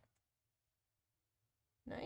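Near silence: faint room tone between spoken words.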